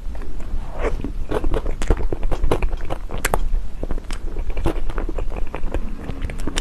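Close-up eating sounds of chocolate cake being bitten and chewed, a dense run of quick, irregular mouth clicks and smacks.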